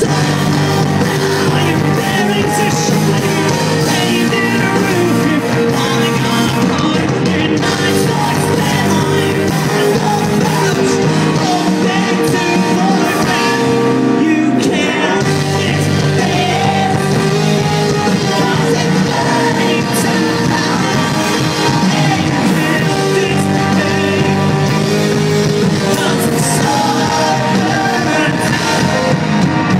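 A rock band playing live and loud: electric guitars and drums with a singer's voice over them, without a break.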